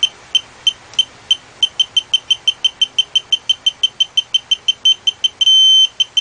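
VANPO 1/2-inch drive digital torque wrench beeping as it is pulled: short high beeps that quicken from about three to about six a second as the reading nears the preset 25, then a long steady beep near the end signalling that the target torque has been reached.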